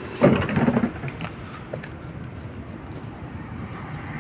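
Footsteps on paving beside a parked tram, over a steady low hum. A brief louder clatter comes in the first second.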